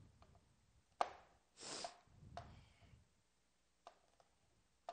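A kitchen knife cutting green beans on a cutting board: a few separate sharp knocks of the blade meeting the board, the loudest about a second in. A short swish follows just after it.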